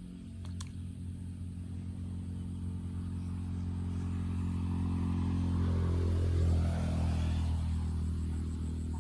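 A motor vehicle's engine running steadily, growing louder, passing close about six seconds in, then fading a little.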